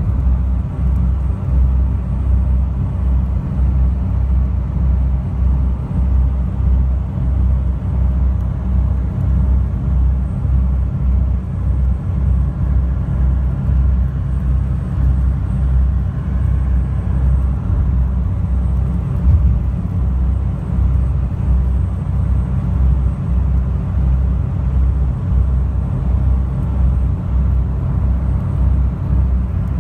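High-speed passenger boat's engines running at cruising speed, heard from inside the cabin as a loud, steady, low drone with a fast throb.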